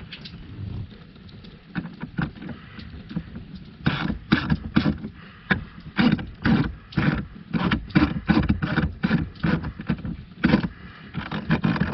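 Hand tools and screws worked at the blower motor housing under the dash: a quiet start, then from about four seconds in a run of short sharp clicking and rattling strokes, about two a second.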